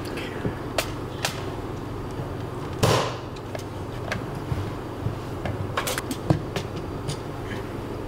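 Hard plastic toy parts clicking, knocking and scraping as the Legendary Megazord's Zords are handled and fitted together, with a longer, louder scrape about three seconds in. A steady low hum runs underneath.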